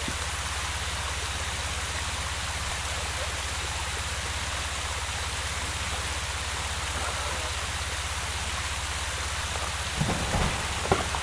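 Steady rush of water pouring over a creek waterfall, with a low hum underneath. A few brief knocks come near the end.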